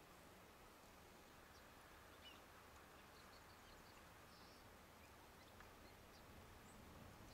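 Near silence: faint outdoor ambience with a few faint, short high ticks.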